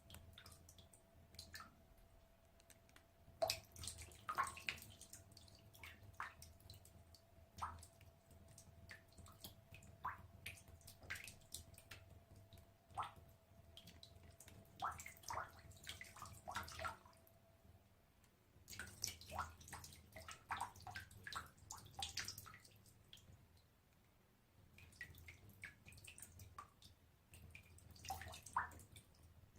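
Small water droplets dripping, many short plinks in quick clusters with brief lulls between. A faint steady tone runs beneath until about two-thirds of the way through.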